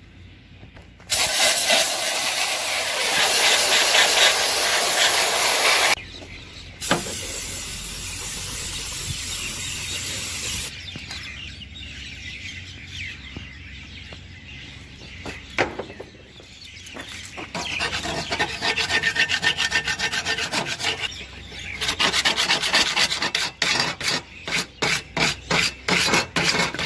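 Harsh scraping and rasping of metal in long loud stretches, turning into quick repeated strokes over the last several seconds: a really annoying noise from working rusted hardware on the mower deck.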